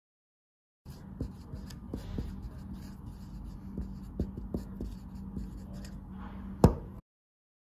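Dry-erase marker writing on a whiteboard: faint strokes with several light taps of the tip, over a steady low hum, and one sharp click near the end. The sound starts suddenly about a second in and cuts off abruptly shortly before the end.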